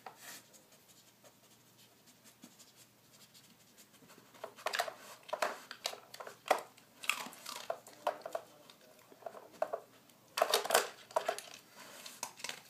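A dog nosing and pawing at a hard plastic Nina Ottosson puzzle toy, its pull-out drawers and bone pegs clacking and rattling. The clacking comes in short clusters, about four seconds in and again near ten seconds.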